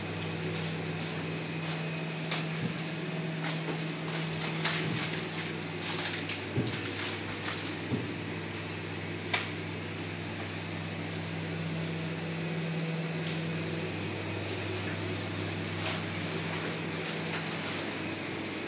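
Rustles and light knocks of packaged goods being handled and set onto metal shop shelves, the sharpest knock a little past the middle, over a steady low electrical hum.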